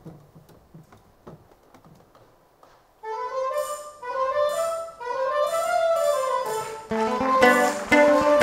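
Faint small knocks on a quiet stage, then about three seconds in theatre incidental music begins: a sustained melody in rising and falling phrases, joined about seven seconds in by a fuller ensemble with a bass line and quick short notes, louder than the opening.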